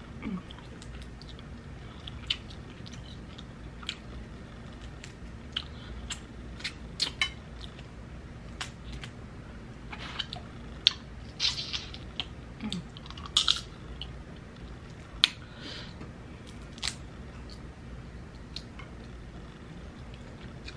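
Close-up eating sounds of crab from a seafood boil: wet chewing and smacking with scattered sharp clicks and cracks of crab shell, loudest and most frequent around the middle.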